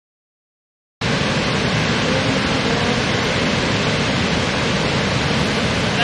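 Waterfall: steady rushing of falling water, starting suddenly about a second in after silence.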